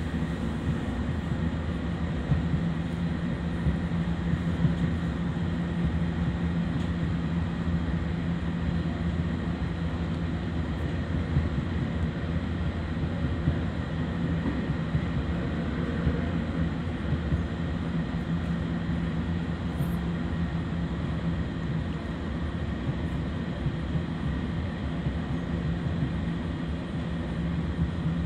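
Local train running steadily along the track, heard from just behind the driver's cab: a continuous low running rumble and hum, with small clicks here and there from the wheels on the rails.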